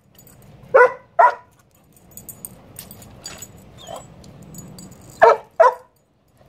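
A dog gives two short, high yips about a second in and two more near the end, with faint clicks in between, while sniffing after a gecko hidden in a woodpile.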